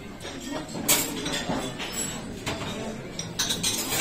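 Cutlery and crockery clinking in a breakfast room: a handful of short, sharp clinks over steady background noise, with a cluster of them near the end.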